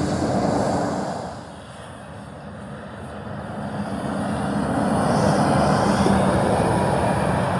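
Semi-trucks passing on a highway: one tractor-trailer's engine and tyre noise fades away in the first second or two, then a second truck approaches and passes, loudest in the latter half, with a steady low engine drone.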